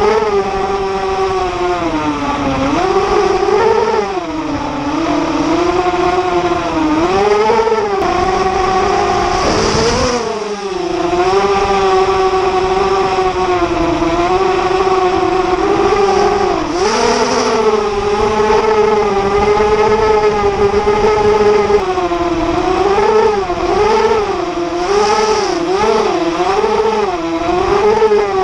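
Brushless motors and propellers of a ZMR250 FPV quadcopter whining in flight, the pitch rising and falling constantly with throttle, and dropping briefly about ten seconds in. A steady wind rumble on the onboard microphone sits underneath.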